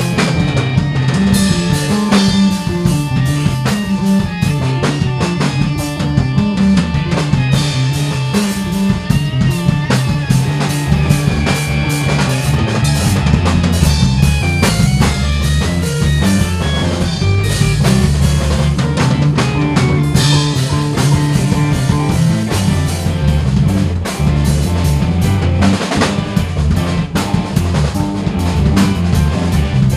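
A rock/jazz-style band playing: drum kit keeping a steady beat under electric bass, electric guitar and electric keyboards (piano and organ).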